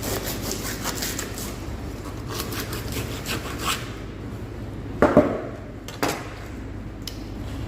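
Knife working on a wooden cutting board: repeated scraping and cutting strokes, then two louder knocks about five and six seconds in, over a steady low hum.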